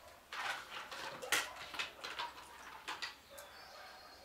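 Hand working damp dough in a plastic bowl, with bowls being handled: a run of short, irregular scraping and handling sounds.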